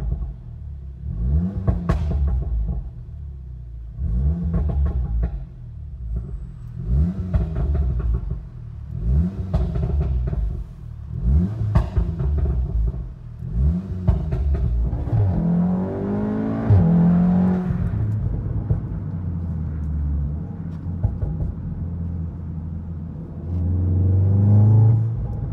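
APR Stage 2 tuned 2016 Volkswagen Golf R's turbocharged 2.0-litre four-cylinder blipped repeatedly while parked, rising and falling about every two seconds. Sharp exhaust crackles come on each lift-off from the pop-and-crackle tune. After about 15 s the revs become less regular, and they swell once more briefly near the end.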